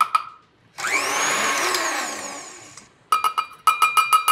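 Stand mixer whirring as its wire whisk beats batter, then a quick run of sharp metallic taps with a ringing tone near the end: a metal measuring cup knocked against the mixer to empty out the last of the flour.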